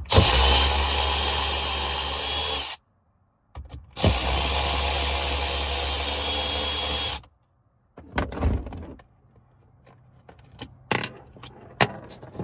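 Cordless drill/driver with a 7mm socket running steadily twice, about three seconds each, backing out the screws that hold a center dash speaker. Then a few light plastic clicks and knocks as the speaker is handled.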